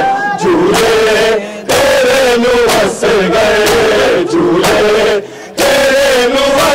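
Men's voices chanting a noha lament together, phrase by phrase with short breaks between lines, over sharp slaps of hands striking chests in matam.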